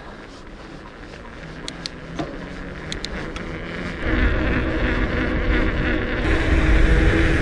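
Knobby fat-bike tyres rolling and humming, with a few light ticks early on; the hum and rumble get clearly louder about four seconds in as the bike picks up speed.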